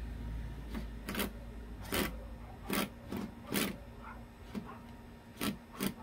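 Cordless drill/driver driving a screw in about nine short trigger bursts, each a brief whirring grind as the screw is fed in.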